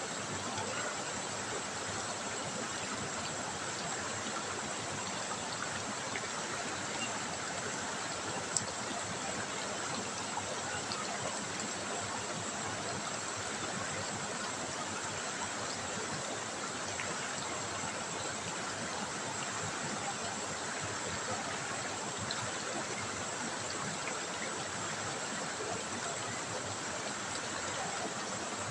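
River water trickling and rushing over stones, a steady even hiss with no let-up. A single sharp tick stands out about a third of the way in.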